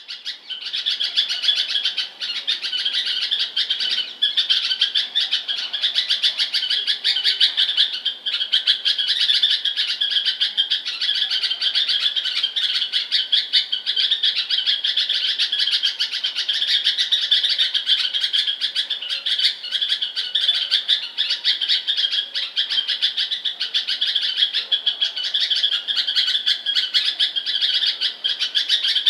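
Bulbul chirping: a dense, unbroken stream of quick, high chirps with no pauses.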